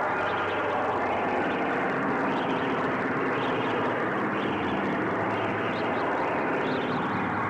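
Experimental film score: a dense, steady drone of many layered tones, with a high edge that swells about once a second.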